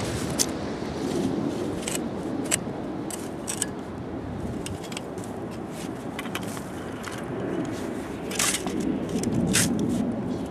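Snow shovel fitted with a Leanlever lever handle scraping and clinking as it digs into and lifts heavy wet snow. There is a scatter of short, sharp scrapes, with two longer, louder ones near the end, over a steady background noise.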